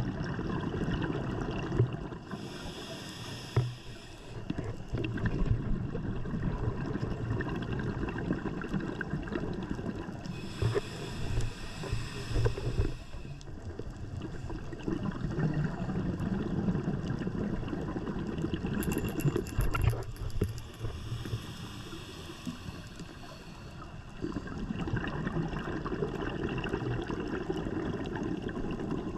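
Scuba diver breathing through a regulator underwater: three long inhalations heard as a hiss, each followed by a gurgling rush of exhaled bubbles.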